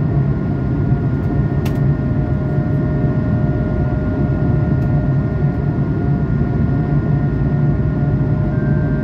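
Steady cabin noise inside an Airbus A220-300 after takeoff: a dense rumble of airflow and Pratt & Whitney PW1500G geared turbofans, with several steady whining tones over it. A single short click about one and a half seconds in.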